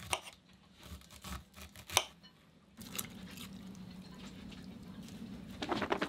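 A knife scraping kernels off an ear of corn onto a plate, with scattered scrapes and clicks and one sharp click about two seconds in. After a short quiet spell under a faint low hum, a fast run of rattling clicks starts near the end as a plastic food container is shaken.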